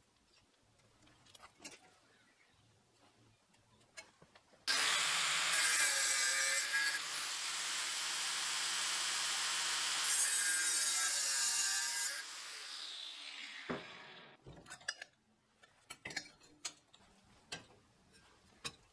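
Angle grinder grinding the corner off a steel flat bar: it starts suddenly about five seconds in, runs loud for about seven seconds, then is switched off and winds down with a falling whine. Light clicks and taps before and after.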